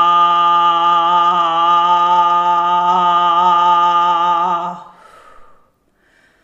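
A woman's voice toning: one long note held on a steady pitch, the vowel slowly shifting as it goes. It fades out about five seconds in, followed by a soft breath and near quiet.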